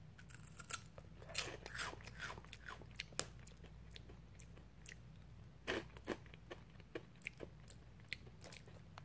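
A person chewing a mouthful of Bugles corn snack close to the microphone: quiet, irregular crunches, several a second, with a few sharper ones.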